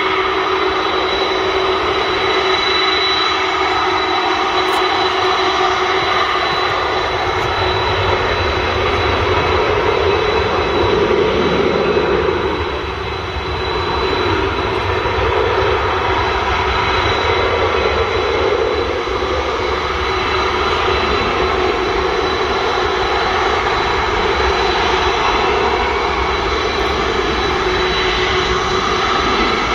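The four jet engines of a Boeing 747-400 running as it taxis, a steady high whine over a rumble. The sound dips briefly near the middle.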